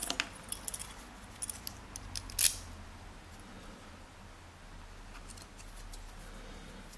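Small metal lock tools clicking and clinking as they are handled while a shim is looked for, with one sharper click about two and a half seconds in; after that only a faint low hum.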